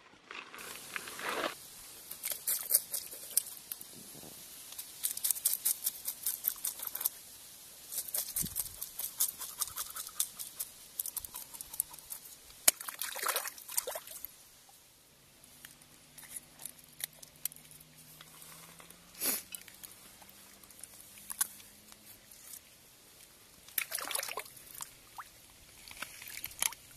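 Knife blade scraping the scales off a small chub: a long run of quick, scratchy strokes that thin out about halfway through. Shallow river water trickles and splashes around it as the fish is handled and rinsed.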